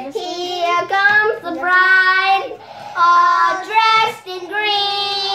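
A child singing a wordless tune in long held notes that slide from one pitch to the next.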